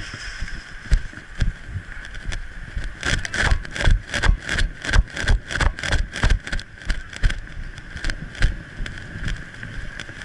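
Irregular thumps and knocks from a helmet-mounted camera jolting as its wearer walks quickly, about two to three a second and densest in the middle, over a steady high-pitched hum.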